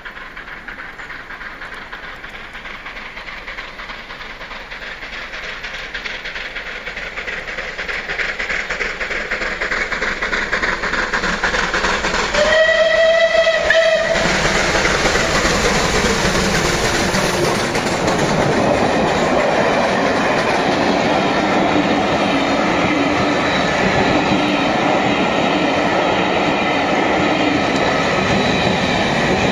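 Steam locomotive approaching, its sound growing steadily louder, then giving one whistle of about a second and a half. After that the locomotive and its coaches pass close by, loud and steady.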